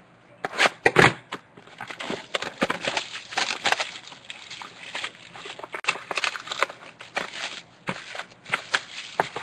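Plastic shrink wrap crinkling and tearing as it is stripped off a sealed box of trading cards, in irregular crackles and rustles.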